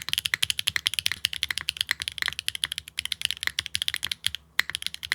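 Fast, continuous typing on a Neo65 Core Plus mechanical keyboard with stock HMX Yogurt V2 linear switches, a carbon fiber plate, no foam and GMK keycaps. Each keystroke gives a sharp clack, with a few brief pauses; the switches sit tight in the plate and type clean, without ticking.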